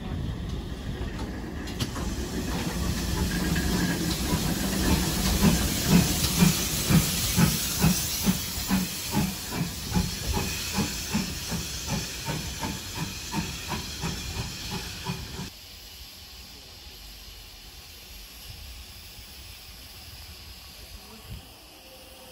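GWR Hall class 4-6-0 steam locomotive No. 4930 hissing steam, then moving off with regular exhaust chuffs, about two a second and quickening slightly. About two-thirds of the way in the sound drops suddenly to a faint, even background.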